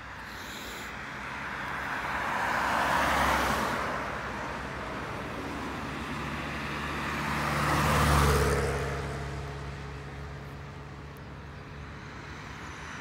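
Two cars passing one after the other on the road, their tyre noise swelling and fading. The first peaks about three seconds in; the second, louder one peaks about eight seconds in, with a steady engine hum that lingers as it moves away.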